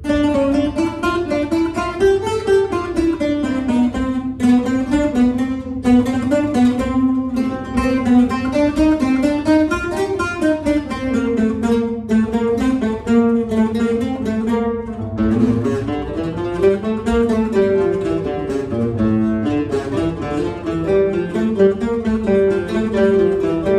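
Several flamenco guitars playing together, strummed chords with many sharp strokes, and a melody that glides smoothly up and down in pitch above them.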